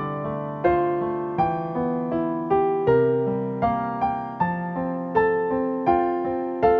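Slow piano music, notes and chords struck about every three-quarters of a second, each fading before the next.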